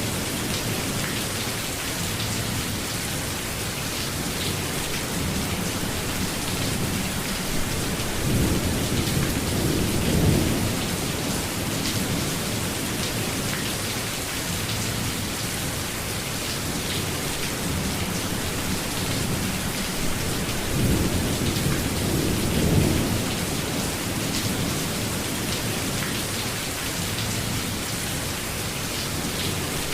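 Steady rainfall with two low rolls of thunder, one about a third of the way in and another about two thirds in.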